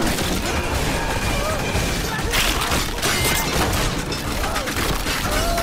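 Soundtrack of an animated gore scene: repeated crashing, smashing impacts of bodies being torn apart, with people screaming, over music.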